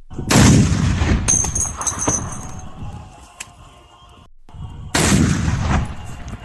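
Two powerful rifle shots about four and a half seconds apart, each with a long rolling echo. After the first shot, the spent brass casing drops and tinkles as it bounces on the ground.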